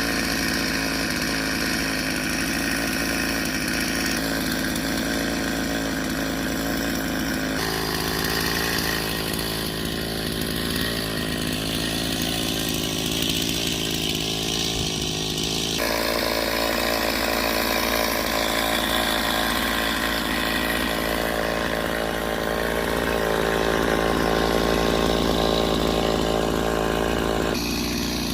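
Chainsaw engine running steadily while cutting into a tree, its tone shifting abruptly a few times.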